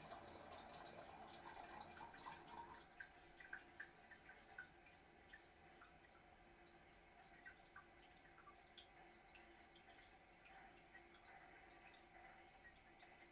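Toilet refilling after a flush: faint running water that eases off about two and a half seconds in to scattered drips and trickles.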